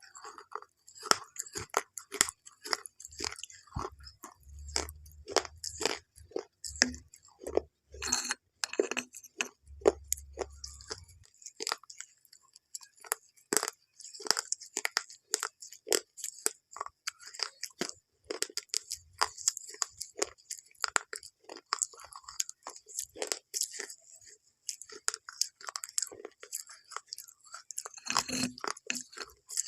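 Close-up crunching and chewing of crisp food: many sharp, irregular crunches, one after another.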